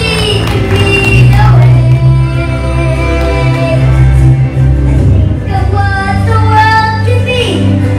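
A young child singing into a microphone over a PA, with live band accompaniment; the sung melody moves through long held notes.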